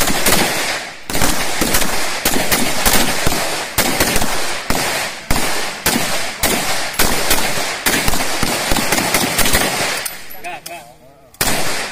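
Rapid, overlapping gunshots from several Pindad SS2 V4 5.56 mm assault rifles firing at once, each shot a sharp crack. The firing breaks off about ten seconds in and picks up again near the end.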